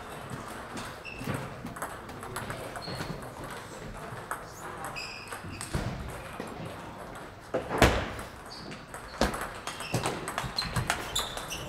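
Table tennis balls clicking off bats and tables, from the near match and others across a large echoing hall, mixed with short high squeaks; one louder knock about two-thirds of the way through.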